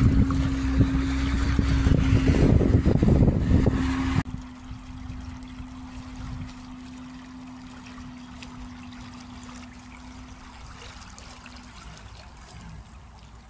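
A boat's motor humming steadily over loud splashing, rushing water. About four seconds in the sound drops abruptly to a much quieter hum with lighter water noise, and the hum stops near the end.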